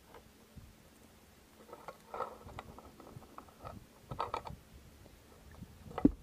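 Metal roller drive chain of a Rokon TrailBreaker clicking and clinking in short irregular bursts as it is handled, with one louder knock near the end.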